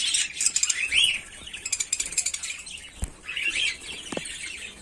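A flock of budgerigars chattering, with many quick rising-and-falling chirps overlapping, and a single sharp knock about three seconds in.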